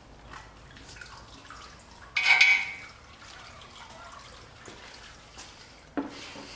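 Metal clanking as hand tools and engine parts are handled: a bright, ringing clank about two seconds in, and a duller knock near the end.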